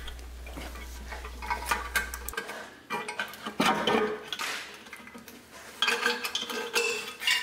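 Irregular metallic clinks, rattling and scraping as the lowered engine oil pan is handled and its gasket is worked out by hand. A low steady hum stops about two seconds in.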